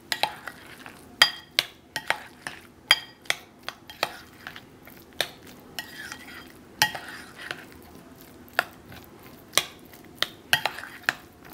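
Spoon stirring and folding thick guacamole in a white ceramic bowl, clinking against the bowl in an irregular string of sharp taps, about two a second, some ringing briefly. The salt and lime juice just added are being mixed in.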